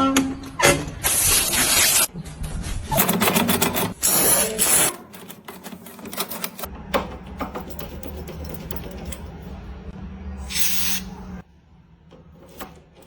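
Aerosol lubricant sprayed into a door lock in several short hissing bursts, the last one higher and thinner, with many clicks of the lock and handle being worked in between.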